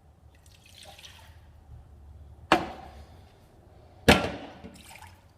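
Water being poured into a mixing bowl, with two sharp knocks about a second and a half apart.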